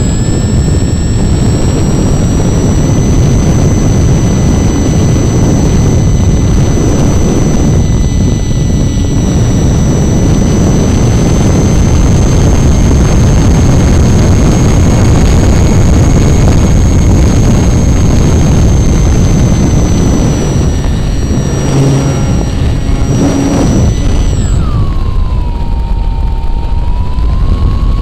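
Onboard a Hobby King Wicked Wing flying-wing model, its nose-mounted motor and propeller give a steady high whine under heavy wind rush on the airframe and camera. Near the end the whine drops sharply in pitch and then slowly climbs again as the throttle changes.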